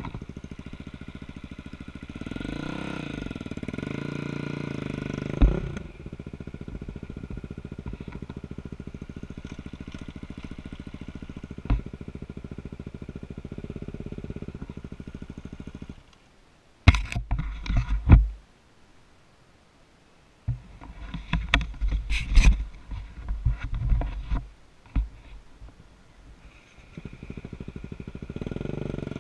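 Dirt bike engine idling, revved briefly a few seconds in. About two-thirds of the way through the engine note cuts out, followed by loud irregular rumbling and knocking, and the engine is running again near the end.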